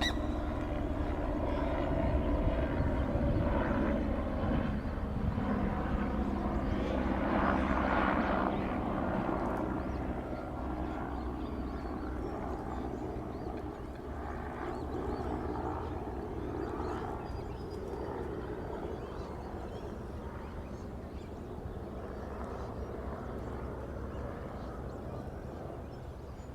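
Engine drone of an aircraft passing over, loudest about eight seconds in and then slowly fading away.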